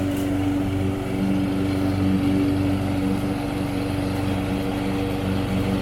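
Toro walk-behind mower's small gasoline engine running steadily at a constant speed.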